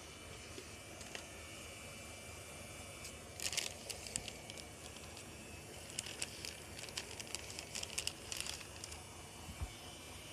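Faint crackling and fizzing of washing-machine soap suds, small pops coming in clusters, over a steady low hum.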